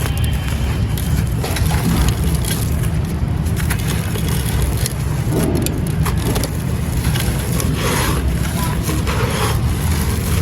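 Dry gritty sand and baked clay crumbling and crunching, in a series of separate crunches that come more often in the second half, over a steady low rumble.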